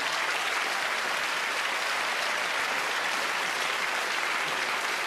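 Large theatre audience applauding steadily: the applause that closes a stand-up comedy set.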